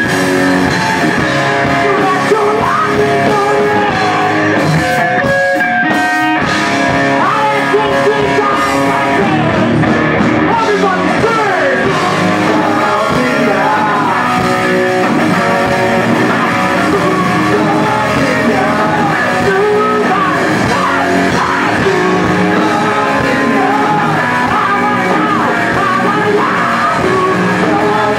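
A hard rock band playing live: distorted electric guitars over bass and drums, with a lead vocal.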